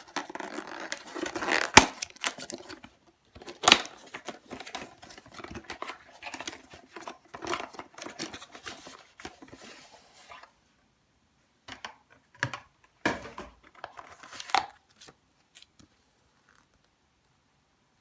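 Product packaging being opened by hand: crinkling and tearing, with a few sharp snaps, for about ten seconds, then a few separate clicks and knocks as the pieces are handled.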